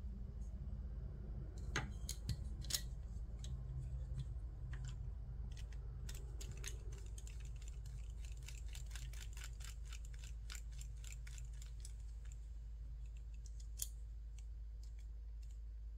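Faint, scattered light clicks and ticks of small screws and frame parts being handled and fitted by hand, thickest about six to twelve seconds in, over a low steady hum.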